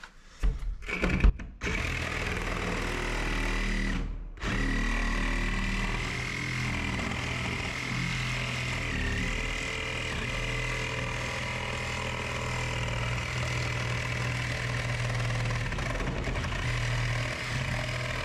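Angle grinder cutting into a shipping container's wall. A few short bursts at first, then, after a brief stop about four seconds in, a long steady run with a high motor whine that dips briefly in pitch near the middle.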